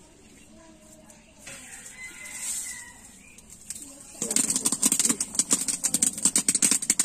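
Chicken curry boiling hard in an iron pot over a wood fire: rapid, dense bubbling and popping that starts suddenly a little past halfway and is the loudest sound. Before it there is a quieter stretch with faint bird calls.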